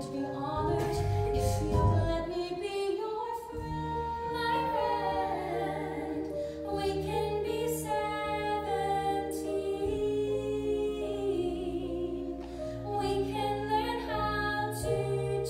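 Live musical-theatre singing: a woman's voice holding and gliding between sustained notes over band accompaniment, recorded from the audience in a theatre.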